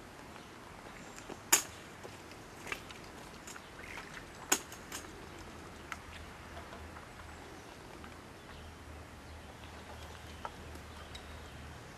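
Quiet outdoor ambience with a faint low rumble and a few sharp clicks or taps; the two loudest come about a second and a half and four and a half seconds in.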